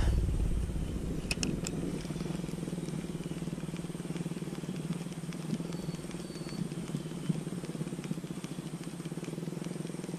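A small engine running steadily in the background, a low, even drone. A few sharp clicks sound about a second and a half in.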